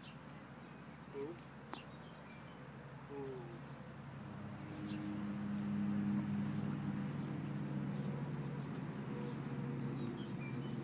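A low, steady engine hum comes in about four seconds in and holds, with a few faint bird chirps above it.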